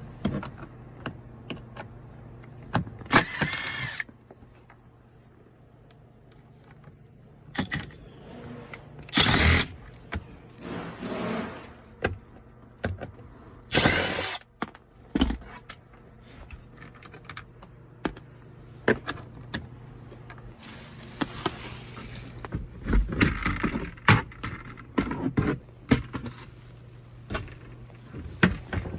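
A power drill-driver running in several short bursts, backing out the screws of a truck's dash panel, with clicks and knocks of the panel and tools between the bursts. A low steady hum runs underneath.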